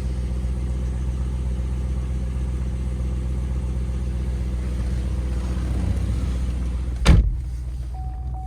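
Holden Commodore SS V Redline's V8 engine idling steadily, heard from inside the cabin, with a single sharp knock about seven seconds in.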